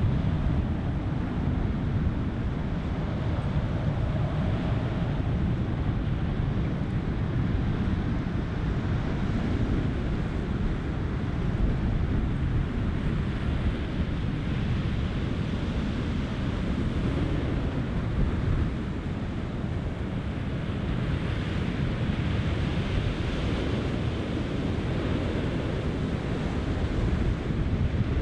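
Steady wind rumble on the microphone over the wash of choppy open water, an even noise with no engine tone standing out.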